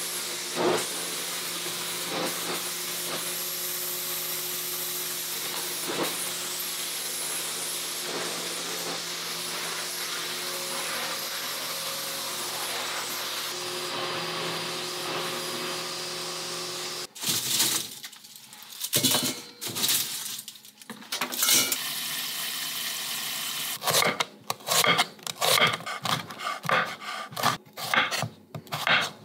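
Canister vacuum cleaner running steadily on a wood floor, cutting off abruptly about two-thirds of the way through. Then irregular knocks and a quick run of knife strokes chopping cucumber on a wooden cutting board.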